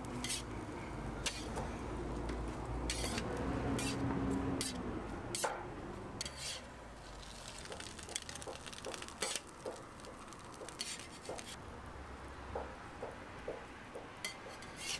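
Metal tongs and a spatula clicking and scraping on a flat steel griddle in irregular, sharp taps, over a faint steady sizzle.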